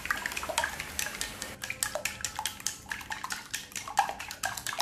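Raw eggs being beaten in a glass bowl with a wooden utensil: a rapid, irregular clicking as the utensil strikes the glass, while the eggs are whisked until fully broken up.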